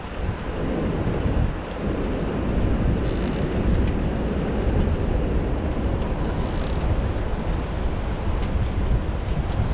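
Steady low rumble of a boat engine under way, with wind buffeting the microphone.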